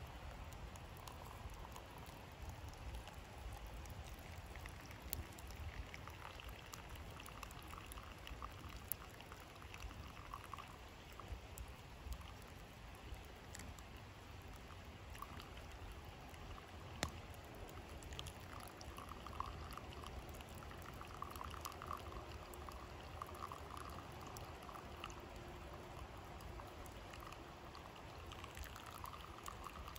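Hot water poured in a thin, steady stream from a stainless steel cup into a pour-over coffee filter, a faint trickle as the coffee brews, with a few faint clicks.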